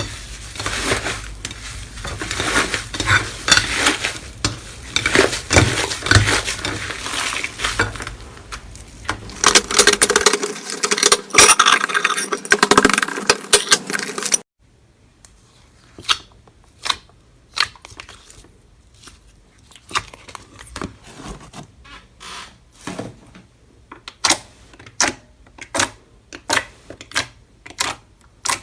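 Slime being squeezed and pressed by hand: dense crackling and clicking for about the first half, then, after an abrupt cut, separate sharp clicks and pops about one or two a second.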